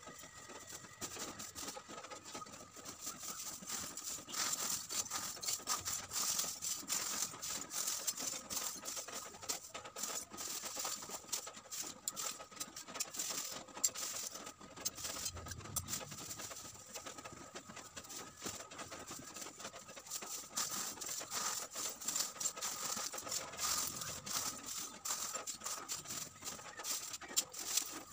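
Pieces of coconut-shell charcoal clinking and rattling as they are scooped by hand and dropped into a plastic bag, with the bag crinkling; a steady run of many small clicks.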